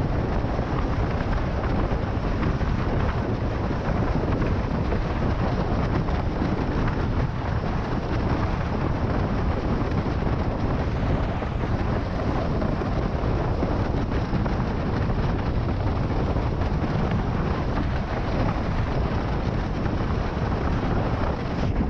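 Steady rush of wind buffeting the camera microphone, mixed with water rushing under a windsurf board planing at about 55 km/h.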